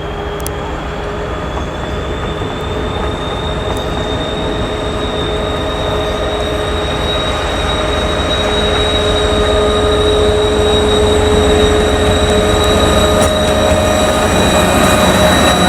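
Turbocharger whistle of a TEP70 diesel locomotive's 5D49 engine as it is notched up through the controller positions. A high whistle rises in pitch over the first few seconds and then holds above the engine's low running. The whole sound grows steadily louder.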